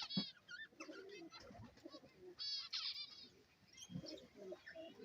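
Small cage birds chirping faintly, with a quick run of high chirps about two and a half seconds in.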